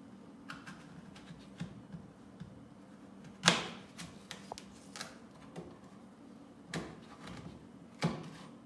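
Scattered sharp knocks and clicks from kitchen work, with one loud knock about three and a half seconds in and two more near the end, over a low steady hum.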